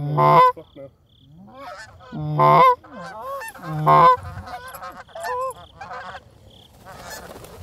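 Canada goose honks and clucks, many short calls overlapping, with three loud honks about a second and a half apart and fainter ones between, from a flock locking up to land.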